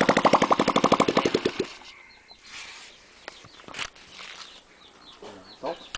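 Honda 67's small engine running with a fast, even beat, then cutting off suddenly about a second and a half in. A few faint clicks follow.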